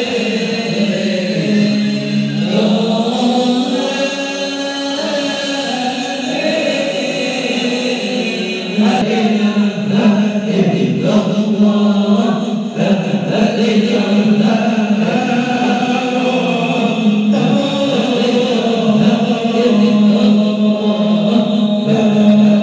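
Men's voices singing a nasyid, an Islamic devotional song, in unison chant, led by one singer on a microphone and carried through a PA loudspeaker. The singing runs on without a break, with held notes.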